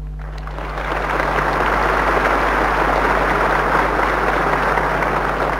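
A large audience applauding: a dense, steady clapping that starts about half a second in and swells, over a steady low hum.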